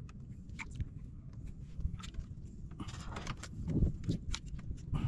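Scattered light taps and rustles of a nylon fishing handline being hauled in hand over hand in a small wooden outrigger boat, over a low rumble of wind and water, with a louder scraping, rustling stretch about three seconds in.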